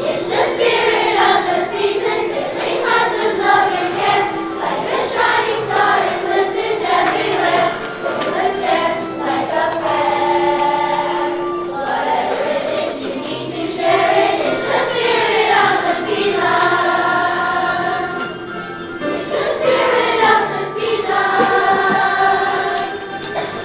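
Children's choir singing a song in phrases of a few seconds, with instrumental accompaniment underneath.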